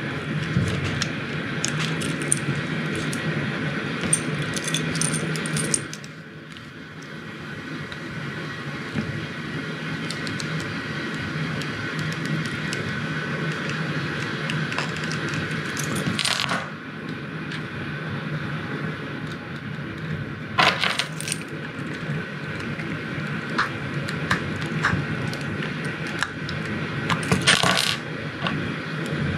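Small hard objects being handled, with light clicks and small metallic clinks and a few louder clatters, over a steady low hum.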